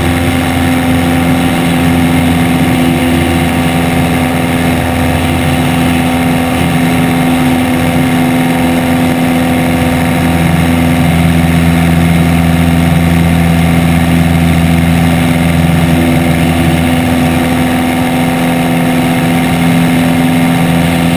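Piper Super Cub's piston engine and propeller running steadily at climb power, heard from outside the cabin with wind noise over the microphone.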